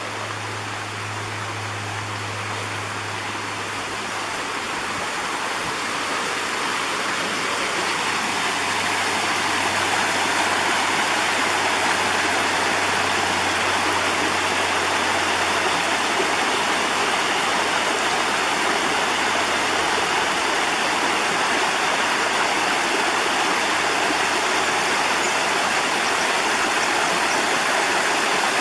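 Water rushing and splashing down Twin Falls, a small rocky waterfall. It grows louder over the first ten seconds or so, then holds steady.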